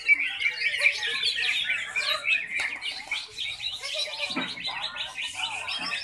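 Many caged green leafbirds (cucak ijo) singing at once: a dense, unbroken mass of rapid, overlapping chirps and trills.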